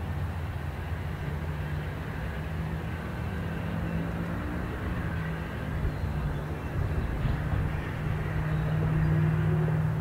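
GE P42DC diesel locomotive of a departing passenger train working under power as it pulls away, a steady low engine drone that grows louder toward the end.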